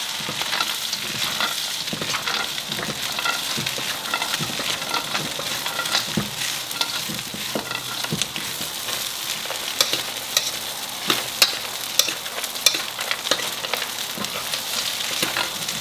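Diced chicken and peanuts sizzling in hot oil in a nonstick frying pan while being stirred with a spatula, which scrapes and clicks against the pan, the clicks sharpest in the second half.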